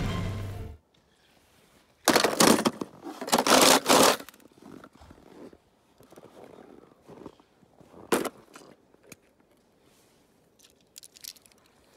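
Snow crunching and scraping: three loud crunches between about two and four seconds in, then fainter scrapes and a sharp click about eight seconds in. Music from the cartoon clip fades out in the first second.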